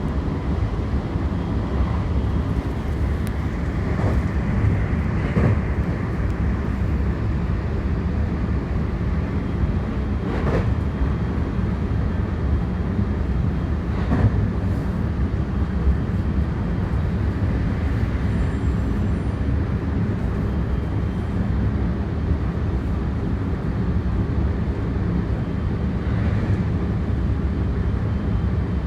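JR 223 series electric train running at a steady speed: a continuous low rumble of wheels on rail with a few short knocks here and there.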